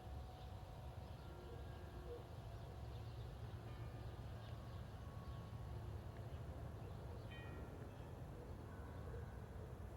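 Faint outdoor ambience: a steady low rumble with scattered bird chirps, one clearer call about seven seconds in.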